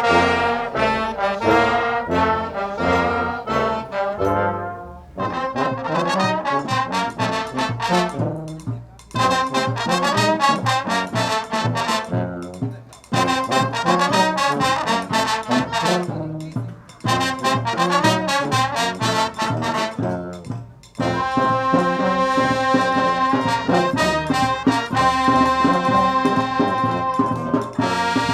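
Brass instruments, trombone and trumpet, playing a tune in repeated phrases about four seconds long, then long held notes in the last several seconds.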